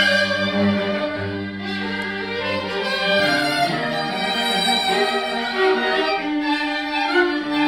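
Live chamber ensemble of bowed strings, violins, viola and cello alongside Korean haegeum, playing held, overlapping melodic lines. The low cello line drops out about three seconds in, leaving the upper strings.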